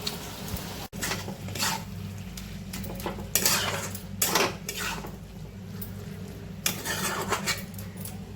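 Metal spoon stirring and scraping spiced vegetables being roasted in a pan, a series of uneven scrapes and clinks against the pan, over a steady low hum.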